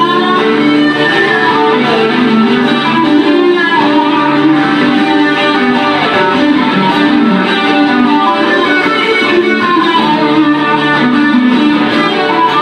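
Two acoustic guitars playing live, instrumental: a busy, quickly moving picked melody over a steady accompaniment.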